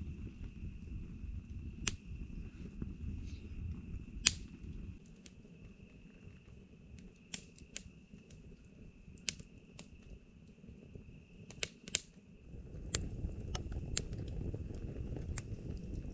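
Wood campfire in a stone fire ring crackling, with sharp pops from the burning wood scattered throughout over a low rumble of flame. The rumble eases off for several seconds in the middle and comes back about three-quarters through.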